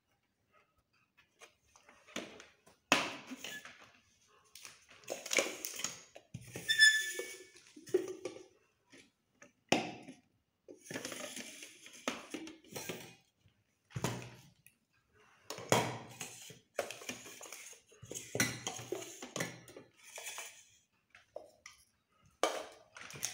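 Stainless-steel mixer-grinder jars and their lids being handled and set down on a hard floor: irregular clattering and knocking, with a steel piece ringing briefly about seven seconds in.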